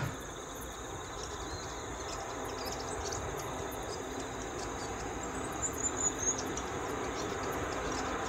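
Quiet rural ambience of insects chirring steadily, with a few short high chirps about six seconds in. Under it, the faint sound of an approaching electric-locomotive-hauled train slowly grows louder toward the end.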